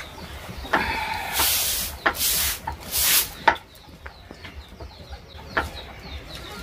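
A chicken calling in a few loud bursts during the first three seconds or so. Light clicks of steel plates and a tumbler follow.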